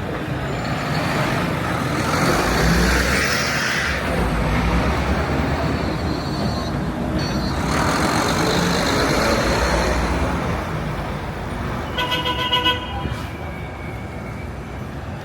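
City street traffic: vehicles passing with engine rumble and tyre noise, two of them louder going by, and a short car horn honk about twelve seconds in.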